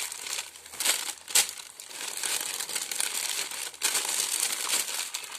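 Thin plastic bags crinkling and rustling as they are scrunched and pinched by hand, with an irregular stream of small crackles.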